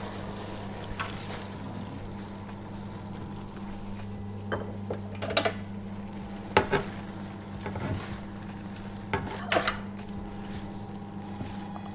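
Crisp fried shredded potato sticks being stirred with a spatula in a nonstick wok of sticky chili-sugar sauce: scraping and crunchy rustling, with a few sharp knocks of the spatula against the pan, the loudest about five seconds in. A steady low hum runs underneath.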